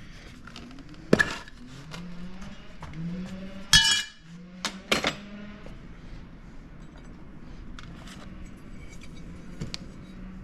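Metal tools and chainsaw parts clinking and knocking as they are handled during a muffler swap. There are a few sharp metallic strikes with a short ring; the loudest comes almost four seconds in.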